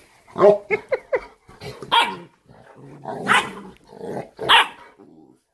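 Cane Corso puppy barking and growling in a rapid string of short calls, the loudest about every second, while play-fighting with an adult dog. It is rough-play drama, not pain: the owner says the mother is not hurting him and he is just being dramatic.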